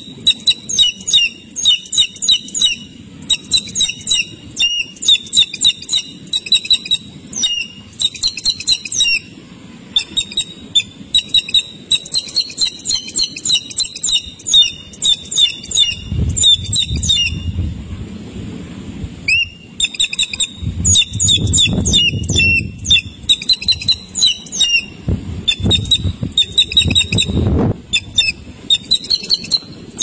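Rapid, high-pitched peeping of hawk nestlings begging while the adult feeds them at the nest, in quick runs that stop and start throughout. There are bursts of low rustling several times in the second half, as the adult's wings move.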